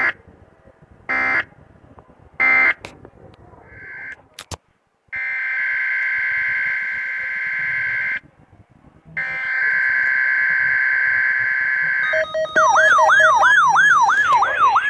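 Emergency alert signalling on a weather-radio broadcast. Three short data bursts of SAME header code come about a second apart, then two long steady electronic tones of about three seconds each. Near the end a fast siren-like alarm starts, a tone gliding up about three times a second.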